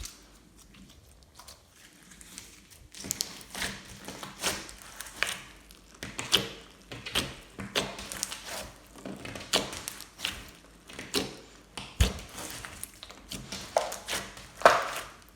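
Glossy slime being squished and pressed by hand, making a run of sharp wet clicks and pops about every half second, starting about three seconds in.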